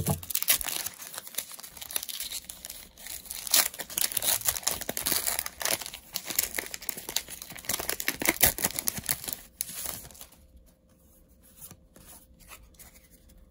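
Plastic-foil booster-pack wrapper being torn open and crinkled by hand, a dense crackling run for about ten seconds. It then drops to a much quieter stretch with a few faint clicks as the stack of trading cards is handled.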